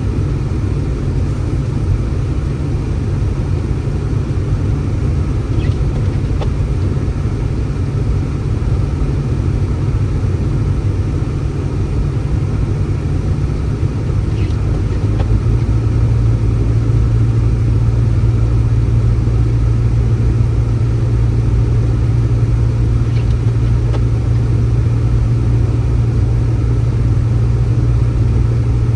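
Steady low rumble, with a low hum in it that grows stronger about halfway through.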